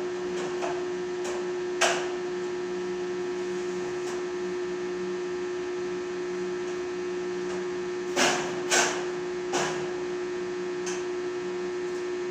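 Steady electrical hum of an arc welding machine's transformer, with a few sharp metal knocks: one about two seconds in and three close together near eight to nine and a half seconds in.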